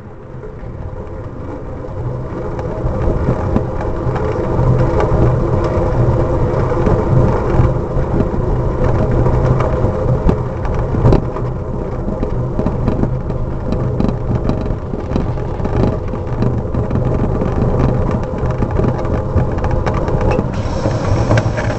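Wind and road rumble on a camera mounted low on a moving bicycle, with frequent small rattles and knocks from riding over the paving. It grows louder over the first few seconds.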